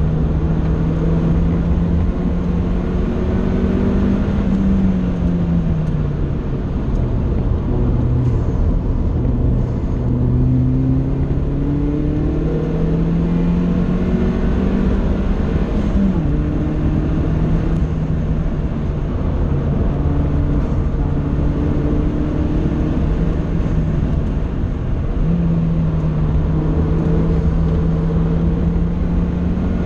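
Vauxhall VX220 Turbo's turbocharged 2.0-litre four-cylinder engine heard from inside the cabin while lapping a circuit, over steady road and wind rumble. The engine note sinks about five to eight seconds in, climbs steadily under acceleration, drops suddenly about halfway through, then holds fairly steady before rising again near the end.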